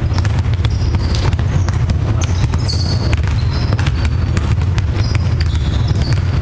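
Several basketballs being dribbled at once on a gym floor, a quick irregular patter of bounces, with short high squeaks from shoes on the court over a steady low hum.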